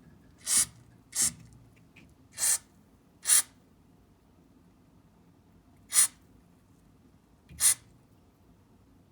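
Aerosol grease spray can squirted in six short hissing bursts, irregularly spaced, lubricating the ventilation fan to cure its abnormal running noise.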